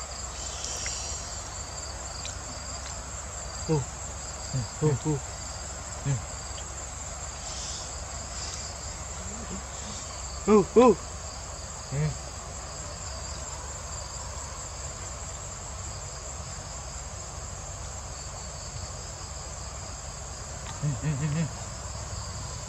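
A steady high-pitched chorus of insects, like crickets, trilling without a break. A few short, low voice-like sounds come over it: several around four to six seconds in, a louder pair about halfway, and a brief cluster near the end.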